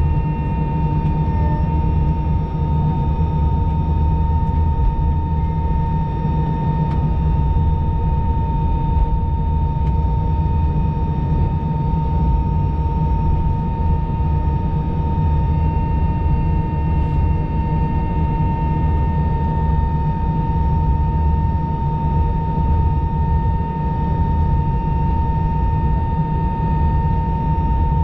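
Airbus A319 jet engines and airframe heard from inside the passenger cabin while the airliner taxis: a steady low rumble with a constant high whine over it.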